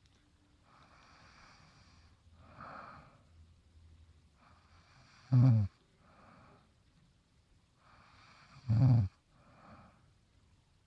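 A sleeping woman snoring: soft breaths in between, and two loud, rough, rattling snores about three seconds apart, the first about halfway through.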